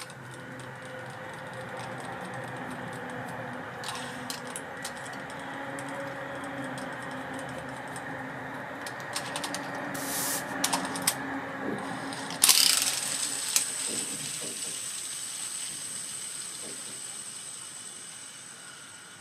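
Abu Ambassadeur 4600 CA baitcasting reel being turned after oiling: a steady mechanical whir with small clicks. About twelve and a half seconds in comes a sharp click, then a high, steady whine that slowly fades.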